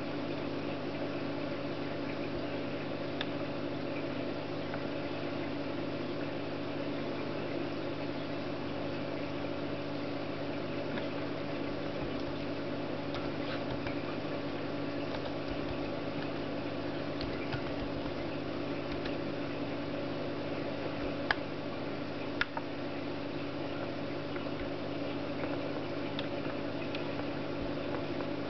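Steady hum with several held tones, like a small fan or electrical appliance running. Faint scattered clicks run through it, and two sharper clicks come about three-quarters of the way through.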